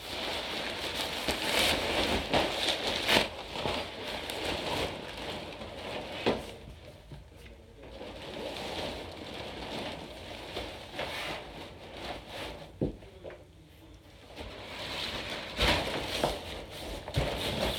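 Blue nylon fabric of a pop-up dog agility tunnel rustling and crinkling as it is pulled open and handled, with scattered knocks. The rustling is louder at the start and again near the end, when someone crawls through the tunnel.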